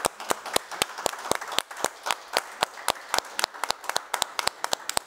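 Applause from a small seated audience: many hands clapping irregularly, with a few sharp, close claps standing out above the rest.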